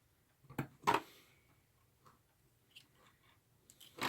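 Sharp clicks of test-gear controls being worked: two close together early in the stretch, a few faint ticks later, and another click near the end.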